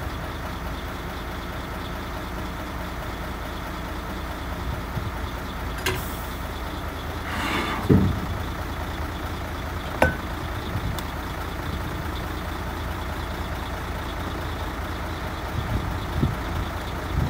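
Truck engine idling steadily, with a few clinks and knocks of tins and metal cookware being handled. The loudest knocks come about eight and ten seconds in.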